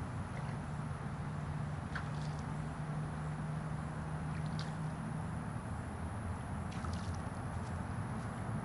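Steady low mechanical hum under an even haze of outdoor noise, with a few faint, brief high chirps about two seconds in, midway and near the end.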